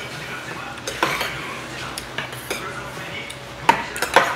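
Stainless steel spoons clinking and scraping against an earthenware ttukbaegi and a small stainless steel bowl while soup and rice are scooped up. Scattered clinks, the loudest two near the end.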